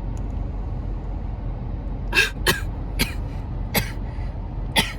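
A coughing fit of five sharp coughs, starting about two seconds in, from someone who has just inhaled vape vapour that burns the throat. A steady low hum runs underneath.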